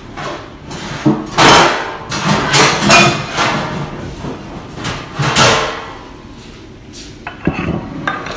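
Wooden chopping board knocking and clattering as it is taken out and carried over, with a few sharper knocks near the end as it is set down on the counter.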